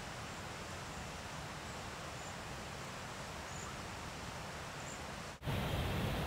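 Steady outdoor background noise with a few faint, very high, thin calls of cedar waxwings, spaced a second or so apart. About five seconds in the sound cuts abruptly to louder, duller background noise.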